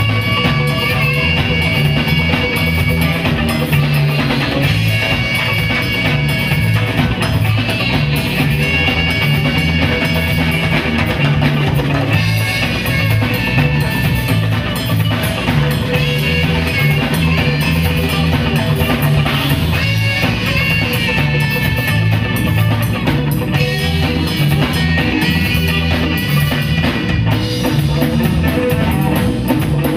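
Rock band playing live with no singing: drum kit, electric guitar and bass keep a steady rhythm under held melody notes, with congas and a saxophone in the mix.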